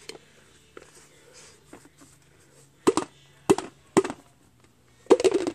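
Several sharp knocks, a few with a short ring, from the white steel go-kart wheels being handled: three single knocks about half a second apart, then a quick cluster near the end. A faint steady low hum runs under them.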